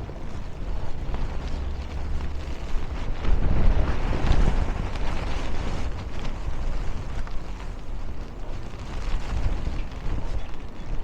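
Snowstorm wind buffeting the microphone with a low rumble, mixed with street traffic; the rumble swells louder for a couple of seconds a few seconds in.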